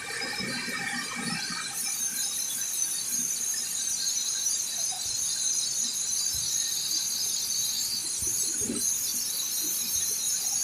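Feed-processing machinery running with a steady high-pitched hiss and whine, which grows stronger about two seconds in.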